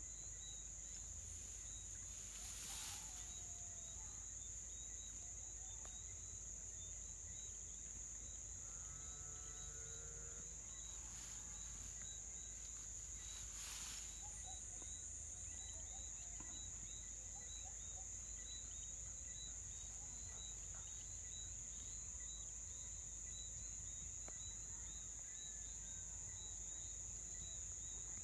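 Steady, high-pitched insect buzzing, with faint regular chirps above it. A short animal call comes about nine seconds in, and there are a few soft clicks.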